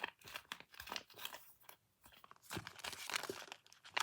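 Crinkly plastic crackling as a taba squishy is handled up close, in irregular bursts with a short lull about two seconds in.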